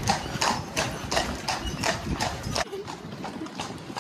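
Hooves of a horse pulling a carriage clip-clopping on a paved road, about three strikes a second. The hoofbeats stop abruptly about two-thirds of the way through.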